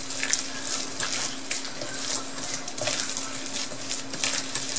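Gloved hand kneading seasoned ground pork in a stainless steel bowl: irregular wet squishing, over a steady faint hum.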